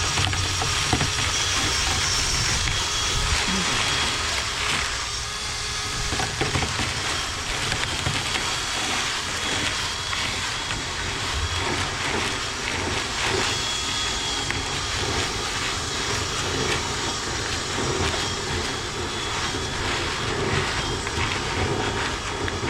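Dryer vent cleaning equipment running steadily in a lint-clogged vent duct: a continuous whir and rush of air with scattered small rattles.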